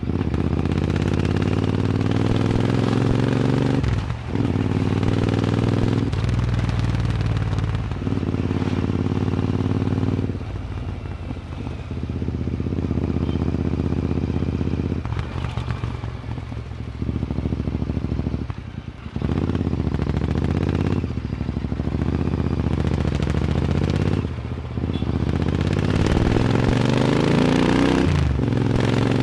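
Royal Enfield Interceptor 650's 648 cc parallel-twin engine through a loud aftermarket AEW 102 exhaust, ridden under acceleration. The pitch climbs again and again, dropping briefly at each gear change, with quieter stretches off the throttle near the middle.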